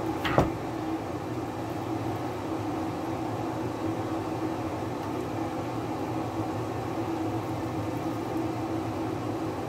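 Steady mechanical hum of a running fan, a low even drone with a faint tone in it, with one sharp click about half a second in.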